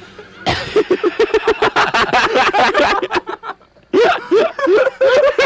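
Men laughing hard in a radio studio: a long run of rapid 'ha-ha' pulses starting about half a second in, a short break, then a second burst of laughter near the end.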